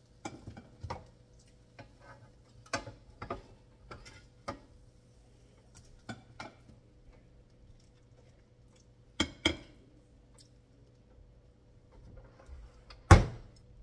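Kitchen clatter of pans and utensils being handled: scattered light clinks and knocks, a louder double knock about two-thirds of the way through, and one sharp bang near the end.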